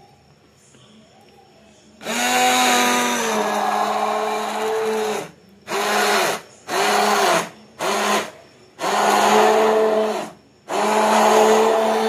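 Electric hand blender running in a steel bowl of mango pulp, pureeing it. It switches on about two seconds in, then is stopped and restarted in short pulses, six runs in all, the pitch dipping slightly as each run starts.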